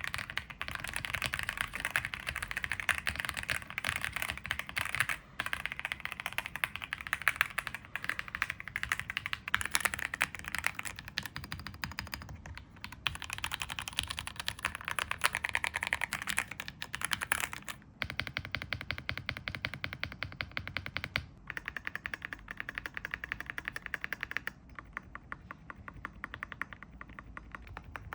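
Typing on a Keychron Z6 Ultra full-aluminium, full-size gasket-mount mechanical keyboard with linear red switches: a rapid, continuous run of keystrokes as a typing sound test. The sound is clean and tidy, with no hollow ring from the case, and softer and duller in the last few seconds.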